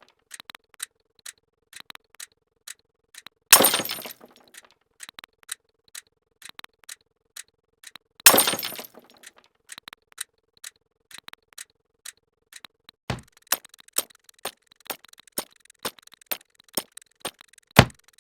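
Glass-shattering sound effect, twice, about 3.5 and 8 seconds in, over a steady run of short sharp clicks. About 13 seconds in it changes to punch sound effects: quick hits, with two heavier thuds.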